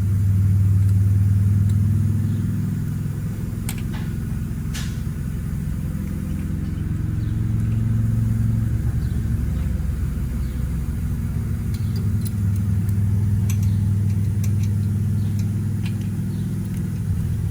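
Low, steady engine rumble that swells and eases slowly, with a few light clicks of hand work on top.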